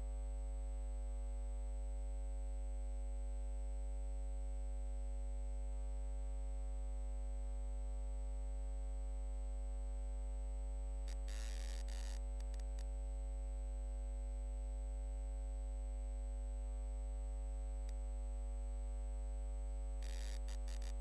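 Steady electrical mains hum with a stack of overtones and a thin high whine, broken twice by short bursts of crackling static, about halfway through and again near the end.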